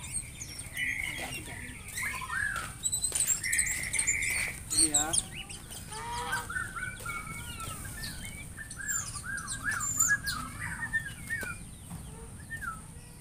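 Birds chirping and calling, many short whistled chirps overlapping. About eight seconds in comes a run of quick repeated chirps, three to four a second.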